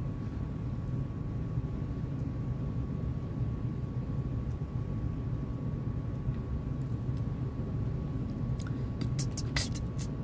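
Steady low rumble with a faint steady hum over it, and a run of sharp clicks near the end.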